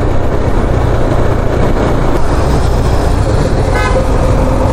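Steady rush of riding noise from a moving motorcycle: wind on the microphone over the running engine and tyres. A brief high chirp sounds about four seconds in.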